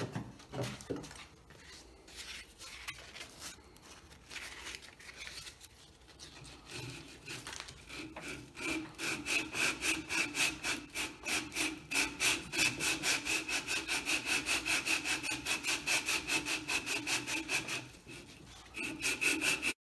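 Sandpaper on a sanding block rubbed back and forth over the sawn castle-joint slots at the top of a black walnut table leg. The strokes are slow and uneven at first. About eight seconds in they become fast and steady at roughly four or five a second, then stop briefly near the end and start again.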